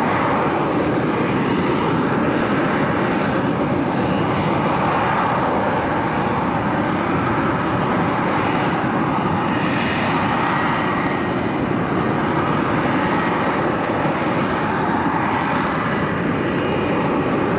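F-35B fighter jet's engine running, a steady, loud jet rush with a faint high whine in it.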